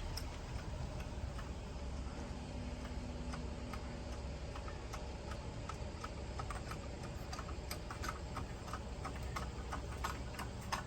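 Light, fairly quiet clicking from a floor jack being worked to raise the pulled transmission, a few clicks a second over a low background rumble.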